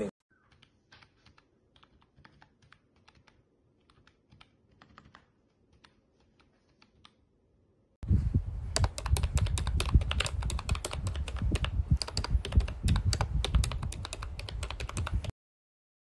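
Keys of a MOFii Biscuit wireless numeric keypad being pressed rapidly: a dense clatter of key clicks that starts abruptly about eight seconds in and cuts off sharply some seven seconds later. Before it there are only a few faint, scattered clicks.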